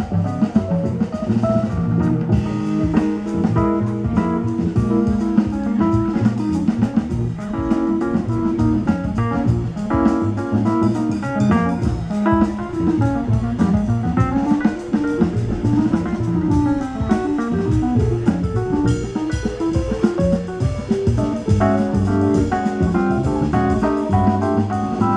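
Live jazz band playing through PA speakers, a melody carried over a steady drum-kit beat, with one line running down and back up about halfway through.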